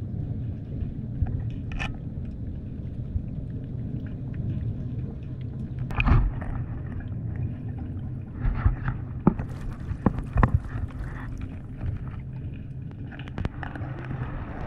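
Muffled underwater sound through a camera housing: a steady low rumble of water moving around the camera, broken by a few sharp knocks and clicks, the loudest about six seconds in and a cluster a little later.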